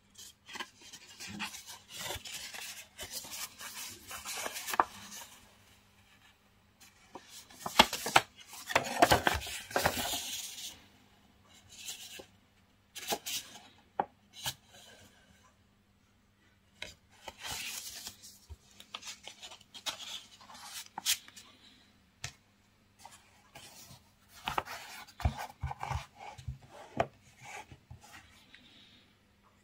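Paper rustling and crinkling in irregular spells as a folded instruction pamphlet is leafed through and unfolded, with sharp clicks and taps of a cardboard watch box being handled.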